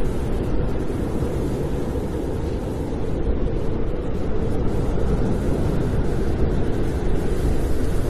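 Snowstorm wind blowing steadily, a low rushing noise, slightly louder from about three seconds in.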